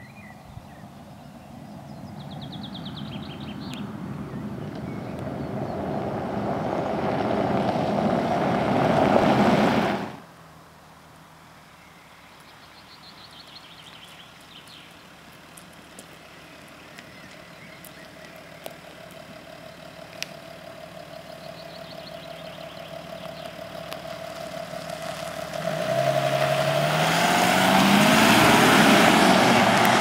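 Audi Q7 3.0 TDI quattro's V6 diesel driving toward the listener, its tyres and engine swelling louder over the first ten seconds before cutting off suddenly. After a quieter stretch of faint engine hum, the diesel accelerates hard near the end, its engine note rising steadily in pitch. Birds chirp faintly in the background.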